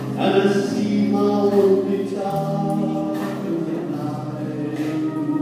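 A man singing a country song into a microphone, backed by a live band with guitars, holding long notes.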